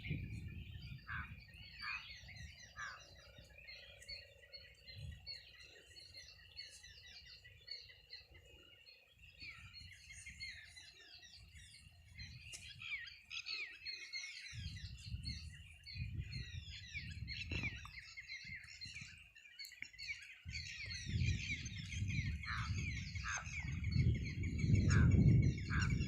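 Many small birds chirping and twittering together in a steady chorus. Bouts of low rumbling noise come and go beneath it, heaviest in the last few seconds.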